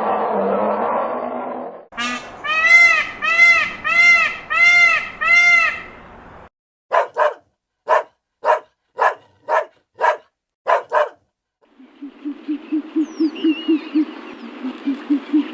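A string of different animal calls. It opens with a rough, noisy call. About two seconds in come six arched calls that rise and fall in pitch, then a run of short, sharp calls. It ends with a low, rapid pulsing call.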